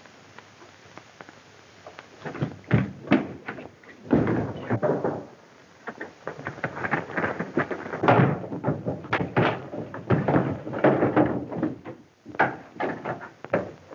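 An irregular series of knocks and thumps, starting about two seconds in and coming in clusters until the end.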